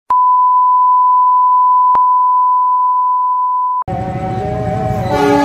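A steady single-pitch test-tone beep over a colour-bar countdown, with a short click about two seconds in. The beep cuts off just before four seconds in, and noisy railway-side sound with several steady horn-like tones takes over.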